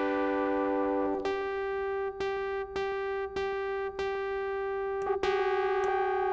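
Korg Volca Keys analog synthesizer playing through its delay: a chord at the start gives way to one note, struck again and again. About five seconds in, a knob is turned and the held note begins to waver and beat.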